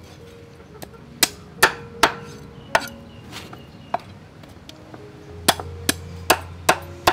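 A cleaver chopping through a whole catfish onto a round wooden chopping board. Sharp chops come in two runs: four in the first few seconds, then five in quick succession near the end.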